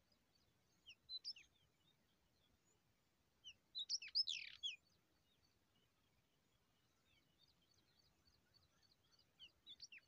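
Small birds chirping with short, high, sliding notes: a few about a second in, a louder tight cluster around four seconds, and a faint quick run of chirps near the end.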